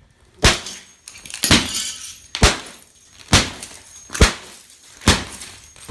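A hammer strikes a pane of laminated hurricane glass six times, about once a second, each blow a sharp crack. The glass is cracking while the laminate holds it together.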